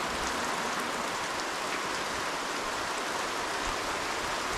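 Heavy rain falling steadily, an even dense hiss with scattered individual drops.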